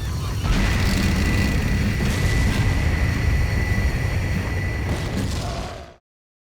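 Loud cartoon rumble sound effect with a steady high tone over it, fading out and cutting to silence near the end.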